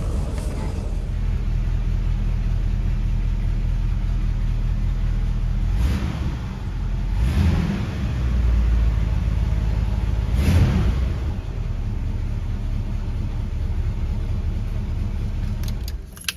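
1978 Cadillac Eldorado's carbureted V8 running at idle and revved briefly three times, each rev a short rise in pitch and loudness, about six, seven and a half, and ten seconds in.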